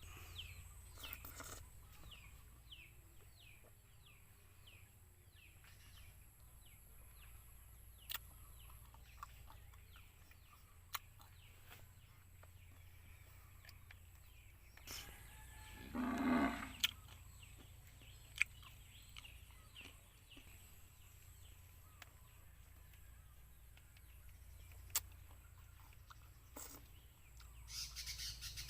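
Faint rural outdoor ambience with birds and farm fowl. Rapid little falling bird chirps fill the first few seconds, one louder animal call sounds about halfway through, and scattered sharp clicks run through it.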